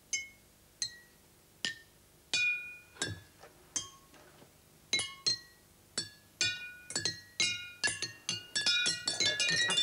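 Glass bottles holding different amounts of water struck with sticks, each tap ringing a clear note whose pitch is set by the water level. Single taps come about once a second at first, then quicker and overlapping near the end as several players strike at once.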